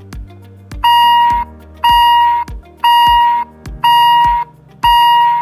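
Arpha SP300 smart lock beeping during its factory reset: a loud, high-pitched tone lasting about half a second, repeated once a second and starting about a second in. Background music with a steady beat plays underneath.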